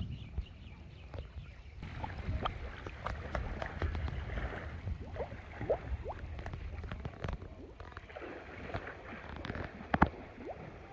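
Outdoor riverbank ambience: a steady low wind rumble on the microphone with scattered short chirps and small clicks, and one sharp click about ten seconds in.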